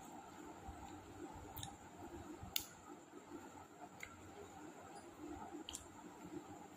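Quiet eating sounds: faint chewing with a few sharp mouth clicks spaced out over several seconds, the sharpest about two and a half seconds in.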